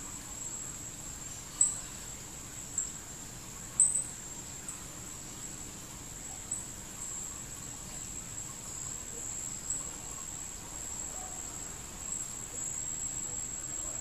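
Steady high-pitched insect trill, like a cricket's, with a handful of short sharp high chirps at irregular intervals, the loudest about one and a half and four seconds in.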